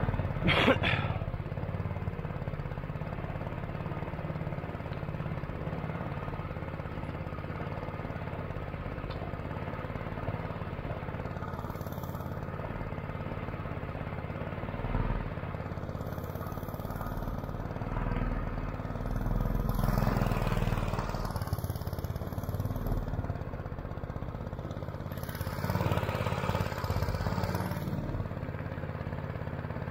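Predator 212 single-cylinder four-stroke engine on a small swamp-runner surface-drive motor running steadily at cruising throttle, pushing the boat through the water. A knock comes just after the start, and the sound swells louder twice, around two-thirds through and near the end.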